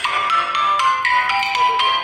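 Playful music: a quick tune of short, bright, marimba-like notes, several a second.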